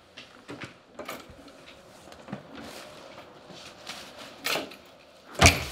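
A front door being opened and someone coming in: a series of sharp latch and handle clicks and knocks, then a louder knock about four and a half seconds in and a loud thump near the end.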